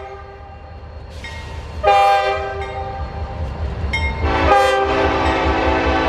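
Diesel locomotive air horns over the low rumble of a passing train. A short high-pitched horn blast sounds about two seconds in. From about four and a half seconds a fuller, lower multi-note air horn sounds and holds on.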